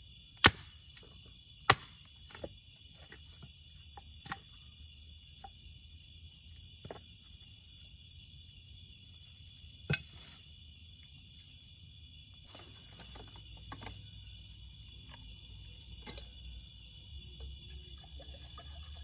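Small campfire crackling, with a few sharp pops, the loudest about half a second and a second and a half in, over a steady chorus of night insects.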